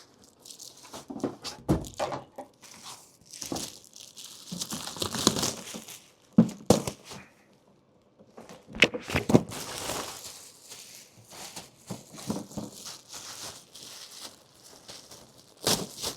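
Packaging being handled and pulled open: irregular crinkling and tearing rustles, with a few sharp knocks.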